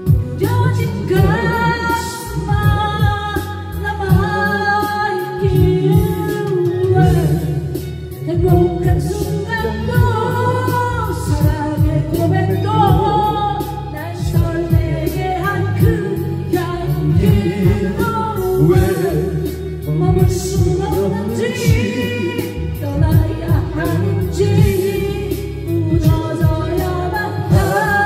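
A man singing a Korean ballad into a karaoke microphone over the karaoke machine's backing track, with long held notes.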